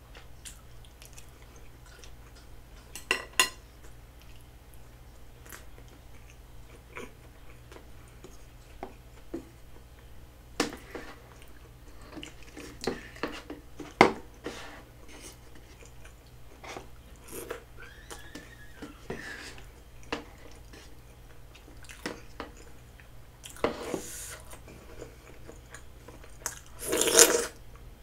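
Close-miked chewing and biting of chewy rice cakes and dumplings, with scattered clicks and scrapes of wooden chopsticks and a wooden spoon in the food cups. There is a louder, noisier burst near the end.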